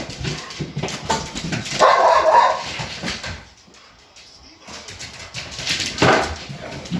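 Dogs barking and whining, with loud bursts about a second or two in and again near the end, and a short lull between them.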